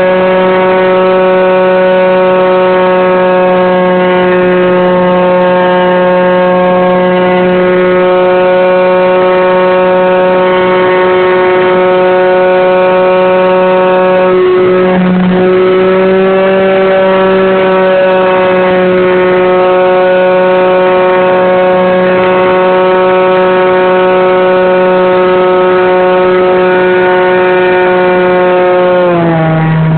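Electric motor and propeller of an R/C Cessna 182 model plane, heard up close from a phone mounted on the fuselage: a loud, steady whine at cruise throttle. The pitch dips and rises briefly about halfway, then drops near the end as the throttle is eased back.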